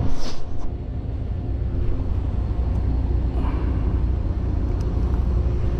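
Steady low machine rumble with a constant hum, like an engine running. A brief hiss right at the start.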